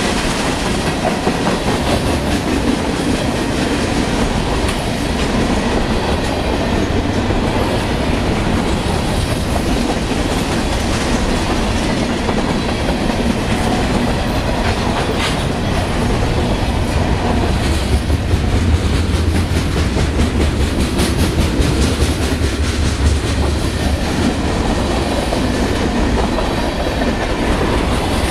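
Union Pacific mixed freight train's cars rolling past: a steady, loud rumble of steel wheels on rail with clicks as the wheels cross rail joints. The low rumble grows heavier a little past the middle, then eases.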